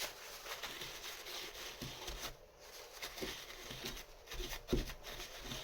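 Faint handling noises of small metal safe-lock parts: a few light clicks and taps, spaced irregularly, over a low hiss.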